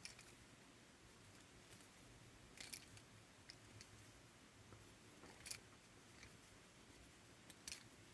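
A pipe cutter working around a hollow metal towel-bar tube, almost silent, with three faint clicks spaced a couple of seconds apart.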